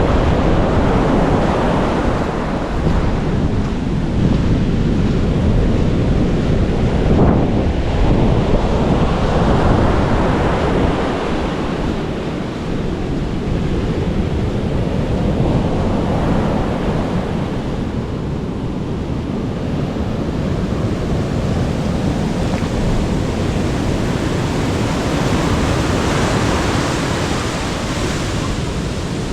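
Ocean surf breaking and washing in, swelling and falling back every several seconds, with wind rumbling on the microphone.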